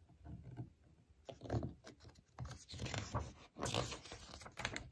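A paper page of a book being turned by hand: soft scrapes and rustles, with a louder stretch of rustling in the second half as the page lifts and flips over.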